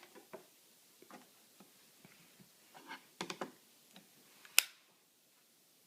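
Trading cards being handled and swapped: light scattered clicks and taps, a short run of them around three seconds in, and one sharp click a little after four and a half seconds in.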